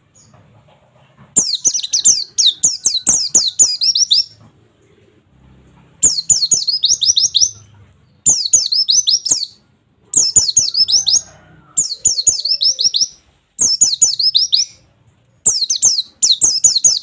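Pleci (white-eye) singing in repeated bursts of rapid, falling, high 'wit wit wit' notes, about seven bursts with short pauses between, the first one longer. This is the fast 'nembak' song that keepers play to train young white-eyes.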